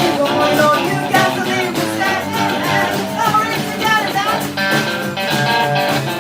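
Live band playing a blues-rock song, with guitar to the fore and a steady beat of percussive hits.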